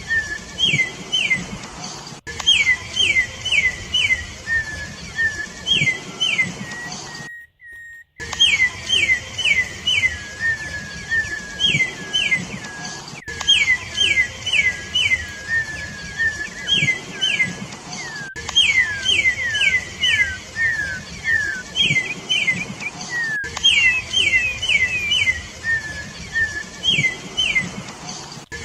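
Campo troupial (corrupião) singing: quick groups of two to five clear whistled notes, each a short sweep in pitch, with lower slurred notes between the groups. The song breaks off in a brief silent gap about seven and a half seconds in.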